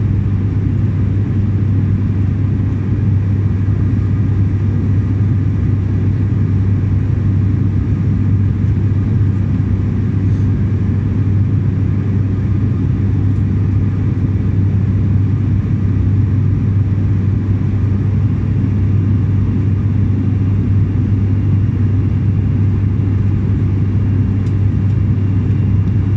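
Steady cabin drone of an ATR 72-600 in flight, heard from a window seat beside the engine: a constant low propeller hum from the turboprop's six-blade propeller over rushing airflow noise.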